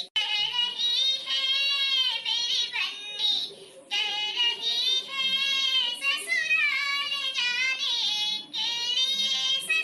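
A woman's high-pitched voice singing a dadra gari geet, a Bundelkhandi folk wedding song, in long held phrases whose pitch wavers and bends, with short breaks between lines.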